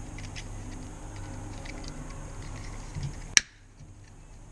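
Plastic protective cover of an ECM wiring-harness plug being handled and fitted, giving faint plastic clicks and rattles, with one sharp click about three and a half seconds in.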